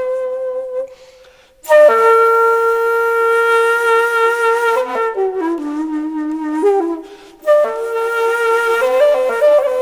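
Background music: a solo wind instrument playing a slow melody of long held notes with small ornaments. It breaks off twice for about a second, once near the start and again past the middle, and sinks to lower notes in between.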